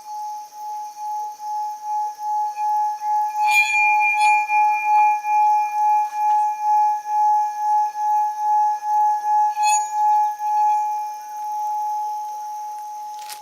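Seven-metal Tibetan singing bowl sounding one held, ringing tone with a steady wobbling pulse, about two beats a second, growing louder over the first few seconds. Two light metallic clinks come about three and a half and nine and a half seconds in, and a sharp tap near the end.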